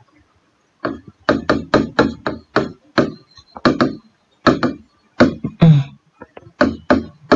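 Marker pen writing on a whiteboard: a quick, irregular run of sharp taps and knocks as the pen strikes and drags across the board, about two to four a second.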